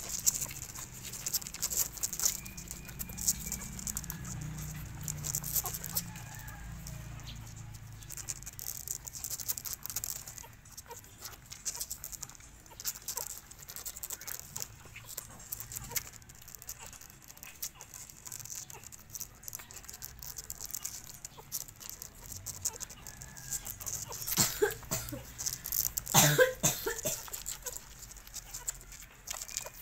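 Two-week-old puppies suckling at their mother dog's teats: a constant soft wet smacking and clicking, with a few faint squeaks. Near the end comes a louder spell of squeaking and whimpering.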